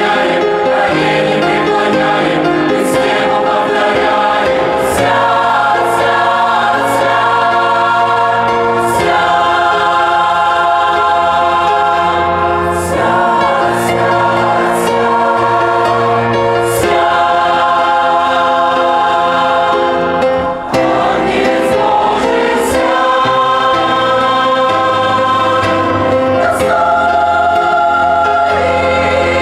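Church choir singing a hymn, holding full chords that change every few seconds.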